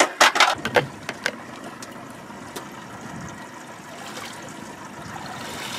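Wire-mesh crab trap clinking and rattling several times in the first second or so, then a steady wash of water.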